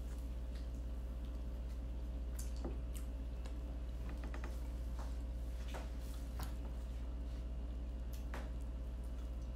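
People eating with their bare hands: faint, scattered squishes and small clicks of fingers working rice and grilled chicken on a plastic-covered table. A steady low hum runs underneath.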